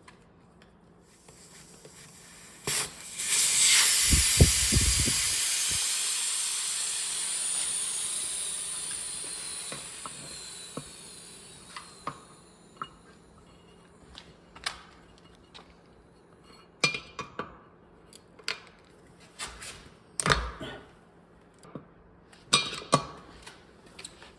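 Air hissing out of a tyre, loudest at first and fading away over about eight seconds. Scattered metal clicks and knocks follow.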